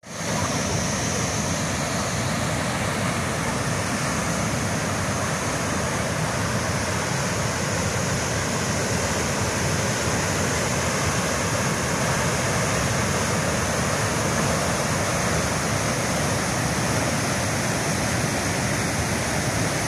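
White water rushing through the open sluice gates of a river weir, a steady, unbroken rush.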